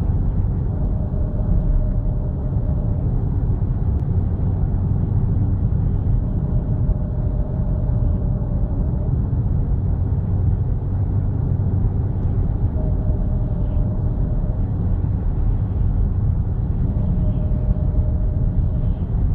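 2010 Audi S4 with a steady low rumble and a thin whine that comes and goes, sounding for about two seconds at a time, four times, roughly every six seconds: the whining noise the owner is trying to trace.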